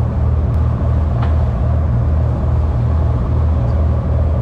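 Boat engine running steadily under way, a loud low drone with a regular throb, over a hiss of wind and water.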